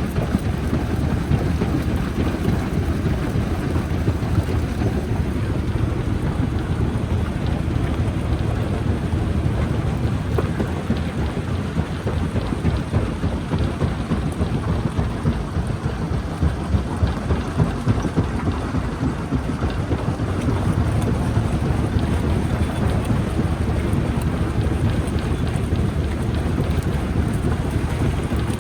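Stone jaw crusher running under load: a continuous heavy rumble with dense rattling and cracking of rock being broken.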